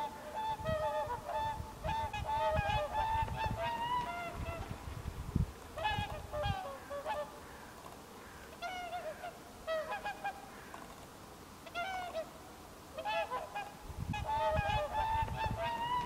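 Whooper swans calling: bugling, goose-like honks from several birds at once, overlapping in clusters with short lulls between, busiest in the first four seconds and the last two. A low rumble lies underneath at times.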